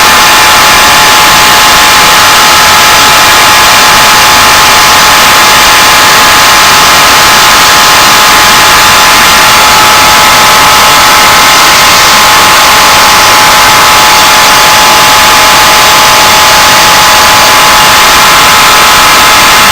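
Belt sander running steadily while a knife blade is dressed down on the belt: a loud, even hiss with a steady whine.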